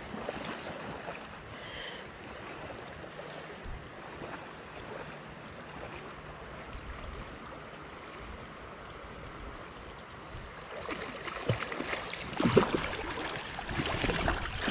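Steady rush of flowing creek water. From about eleven seconds in come splashes and knocks that grow louder toward the end, as the hooked steelhead is brought in to be landed.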